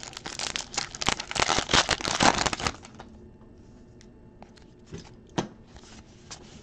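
A 2023 Topps Allen & Ginter baseball card pack wrapper being torn open and crinkled for about the first two and a half seconds, followed by a few soft flicks as the cards are thumbed through.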